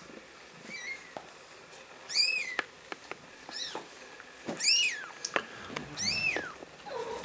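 Newborn kitten mewing: about five short, high-pitched cries that rise and fall in pitch, roughly one every second or so.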